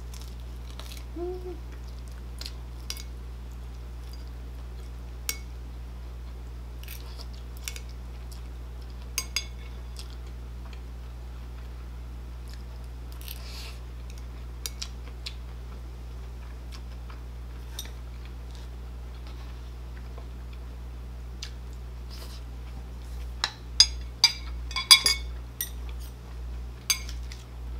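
Close-miked eating: metal chopsticks click now and then against a bowl and plate, with a run of louder clicks near the end, and slow rhythmic chewing in the last few seconds, over a steady low hum.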